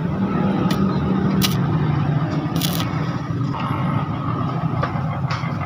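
Stick (arc) welding on a steel rickshaw brake shoe: the arc crackling and sizzling over a steady low hum, with a few sharp clicks.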